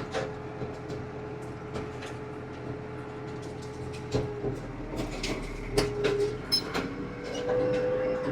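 Farm tractor engine running steadily on the move, with scattered clicks and rattles.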